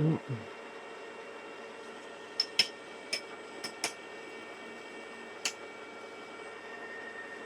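Six or so sharp metallic clinks, spread over a few seconds, as steel parts or tools are handled while setting up the clamping on a milling machine, over a steady low hum.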